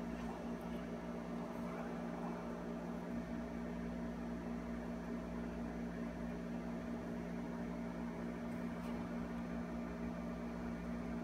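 Steady room hum: a low drone with a fainter, higher steady tone above it and an even hiss, with a couple of very faint clicks.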